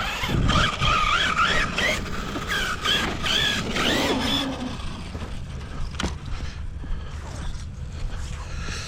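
Whine of an electric RC truck's brushless motor, its pitch wavering up and down with the throttle for about the first half, over low rumbling wind noise. There is a single sharp click about six seconds in.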